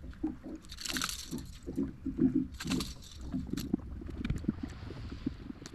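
Water splashing and sloshing, with a couple of bigger splashes about a second in and near three seconds, and scattered short knocks.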